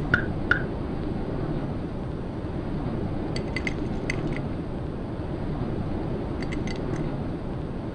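Steady low drone of an aircraft cabin, with two short clicks right at the start. Glassware clinks lightly on a serving tray in two short flurries, about three and a half and six and a half seconds in.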